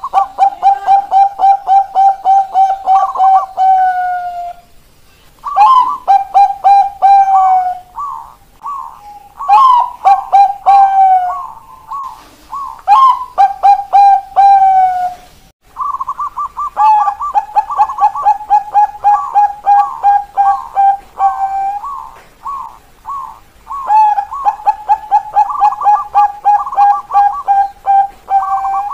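Bangkok-strain zebra doves (perkutut) singing their 'keok kok kok kok' song: phrase after phrase of quick, clipped coos, each phrase lasting a few seconds, with short pauses between them.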